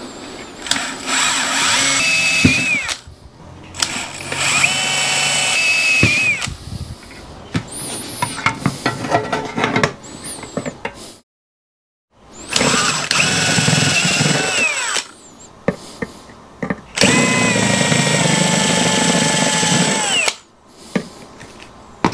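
Cordless DeWalt drill with a step drill bit boring holes through thin sheet-metal chassis. It runs in four bursts of a few seconds each, with a steady whine whose pitch drops as each burst stops.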